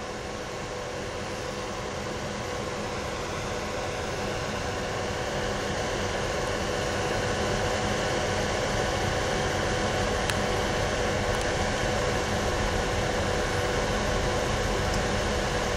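Steady low engine rumble with a faint hum, growing slowly and evenly louder: a distant diesel locomotive drawing nearer along the line.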